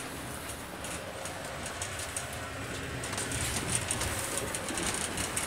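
Low, steady rumble inside a passenger train carriage, with light clicks and rustles scattered through it.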